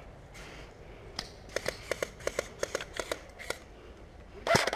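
Airsoft gunfire: a run of sharp clicks about five or six a second, then louder, quicker cracks near the end.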